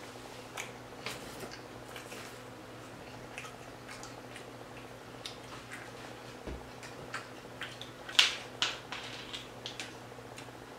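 Close-miked chewing of a calzone: soft, scattered mouth clicks and smacks over a low steady hum. About eight seconds in come a few louder, sharper clicks as a plastic drink bottle is handled.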